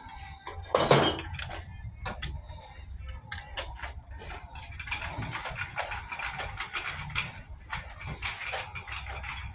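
A wire shopping cart rattling and clattering as it is pushed across a hard store floor, with one loud clatter about a second in, over a steady low hum.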